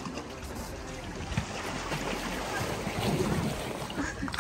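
Small waves lapping at a rocky shoreline, mixed with wind on the microphone, with one brief knock about a second and a half in.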